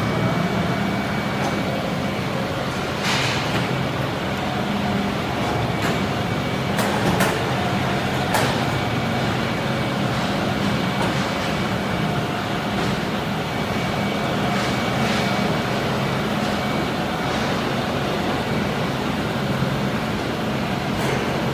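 Steady machinery hum of a steel pipe mill, with occasional sharp metallic knocks and clanks.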